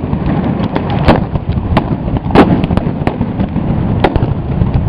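Explosive bangs going off repeatedly, about eight in five seconds, the loudest about two and a half seconds in, amid tear gas being fired, over a continuous low rumble.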